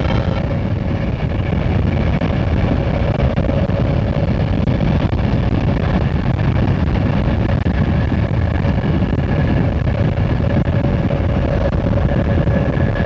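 Steady rumble of a moving Santa Fe diesel freight locomotive, heard from a car pacing it, mixed with the car's wind and road noise.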